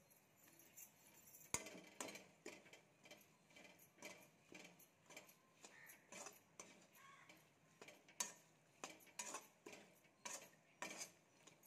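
Steel spatula scraping and knocking against a metal kadai while stirring a thick masala of chili powder, fried garlic and onion: a run of irregular clicks and scrapes, a few a second, the sharpest about one and a half seconds in.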